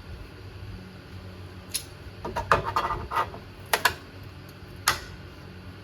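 A few sharp metallic knocks and clanks, with a short clattering run about halfway through, as the sheet-metal running board is handled and set in place against the body for welding.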